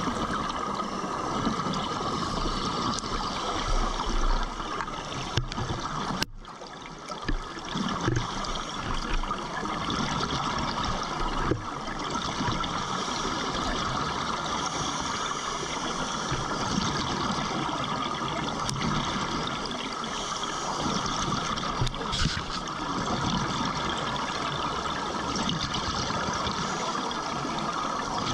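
Steady underwater rushing and bubbling from a diver's air bubbles and breathing gear, heard close at the submerged camera. It drops away briefly about six seconds in, then resumes.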